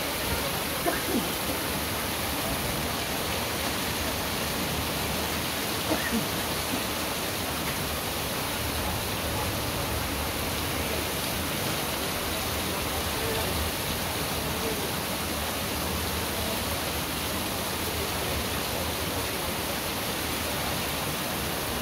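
Heavy rain falling steadily on a wet street, a constant even hiss with no let-up.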